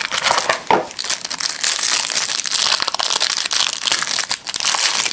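A trading-card hanger box being opened by hand: packaging crinkling and tearing, with many small crackles throughout.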